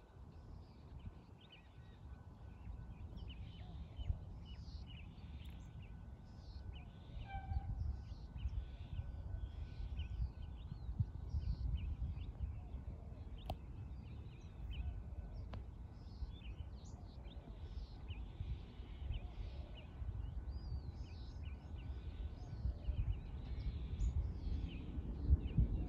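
Outdoor ambience of many small birds chirping and calling in short, scattered notes, over an uneven, gusty low rumble of wind on the microphone.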